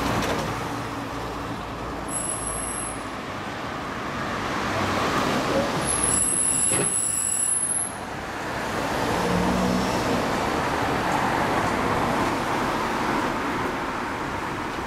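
A Kawasaki Ninja 250R's parallel-twin engine idling through an r's gear WYVERN titanium slip-on muffler, mixed with road traffic that swells and fades. Two brief high squeals come about two seconds in and around six seconds in.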